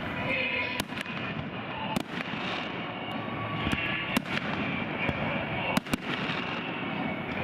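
Fireworks display: shells bursting with sharp bangs, about five in a few seconds, two of them close together near the end, over a continuous crackle.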